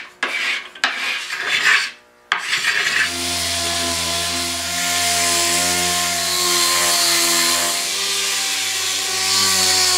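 Hand-sanding strokes with a sanding block on hardwood, then, after a short break, an air-powered orbital sander running steadily against the wood.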